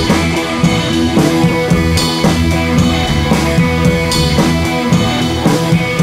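Background music: a rock-style track with drums and guitar and a steady beat.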